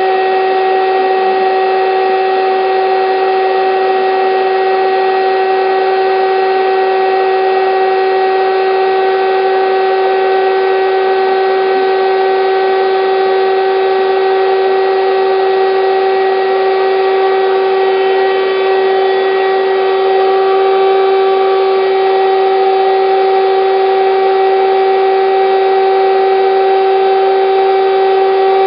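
Electric air bed pump running steadily: a constant motor hum with a rushing hiss of air, unchanging apart from a slight rise in level about two-thirds of the way through.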